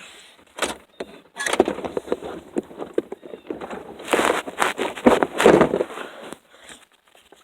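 Rummaging through a pile of plastic Nerf blasters: irregular knocking, clattering and scraping of hard plastic, busiest a few seconds in.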